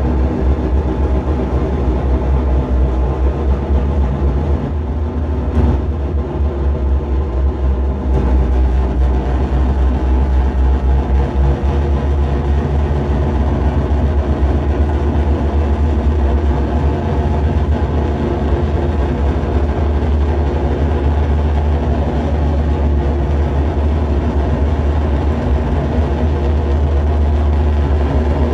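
Live noise music from electronics: a loud, dense, steady drone, very heavy in the deep bass, with many layered sustained tones above it.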